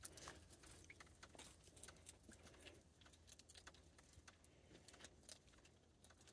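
Near silence with faint, irregular small clicks and crunches: a striped skunk eating seed and peanuts from a plastic feeder dish.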